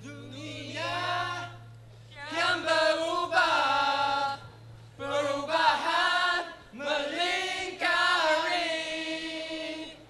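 Mixed choir of male and female voices singing together in four held phrases, with short breaks between them.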